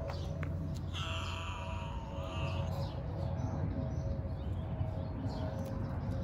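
A cat gives one long, drawn-out meow about a second in, over a steady low rumble.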